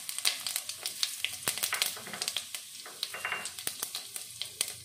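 Cumin seeds crackling and sizzling in hot oil in a kadai, with many small irregular pops: the tempering stage, the oil hot enough to make the seeds splutter.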